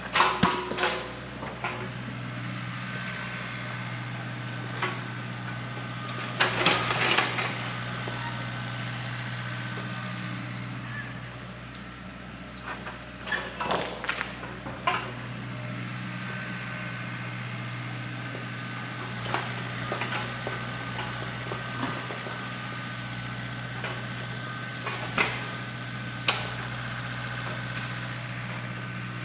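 Heavy-equipment diesel engine running steadily at a constant pitch. Several bursts of sharp knocks and clatter: about a second in, around seven seconds, around fourteen seconds, and two single knocks near the end.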